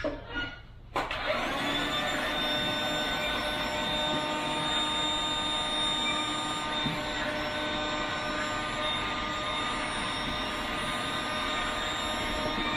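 Electric air pump switched on about a second in, then running steadily with a constant whine over a rushing hiss as it inflates an inflatable boat's tubes through a hose.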